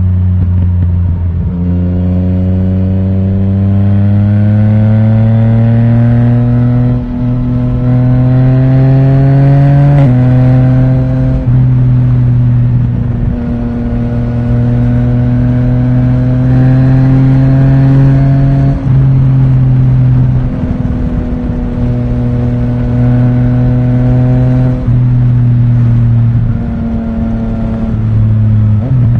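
Yamaha Tracer 900 GT's three-cylinder engine through an Akrapovic titanium exhaust with the dB killer removed, heard onboard while riding. The exhaust note climbs steadily in pitch under acceleration and drops sharply at an upshift about a third of the way in. It then holds a fairly steady cruising note with a few brief dips as the throttle is eased.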